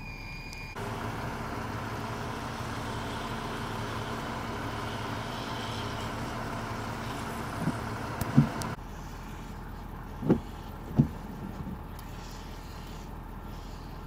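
Vehicle engines running with a steady low rumble, the sound of trucks idling or moving slowly on a snowy street. After a cut near the end the background drops to a quieter steady hush, broken by two dull low thuds a little under a second apart.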